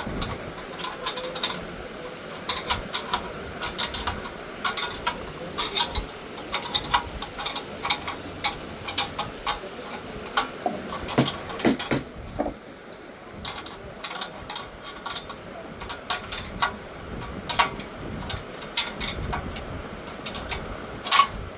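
Irregular clicks and knocks of hard parts being handled and fitted, as when an industrial sewing machine stand is put together.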